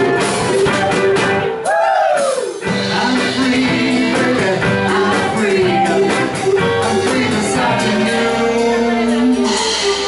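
Live band playing: electric guitars and drums with singing. About two seconds in the band drops out briefly under a single note that slides up and back down, then the full band comes back in.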